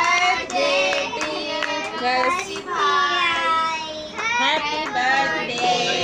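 A group of children and young people singing a birthday song together, with some hand claps.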